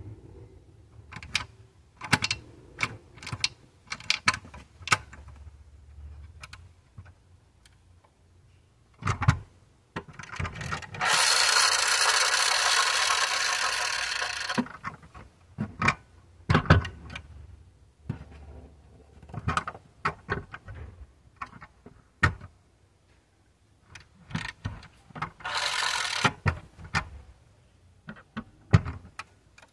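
Die-cast 1/24 Audi A7 model being pushed by hand along the floor: clicks and rubbing from its wheels and body, with two spells of its friction motor's gears whirring, a long one of about three and a half seconds a third of the way in and a short one of about a second near the end.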